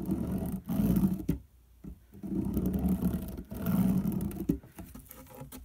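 A pen drawn firmly across corrugated cardboard, marking a cutting line: three rough rubbing strokes, each about a second long, with short pauses between them.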